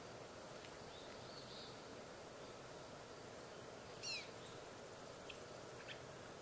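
Faint steady outdoor background noise, with one short high chirp about four seconds in.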